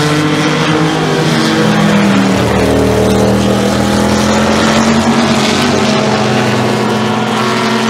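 Open-wheel race car engine running hard on the circuit, a loud steady engine note whose pitch sags slightly about two seconds in and then holds.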